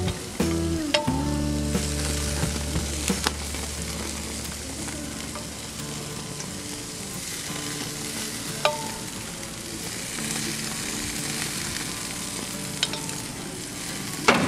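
Butter-basted lobster tails and steak sizzling on a gas grill's grates, a steady hiss, with a few sharp clicks of the basting brush against the metal butter pot and grill. Background music plays under it for the first half and fades out.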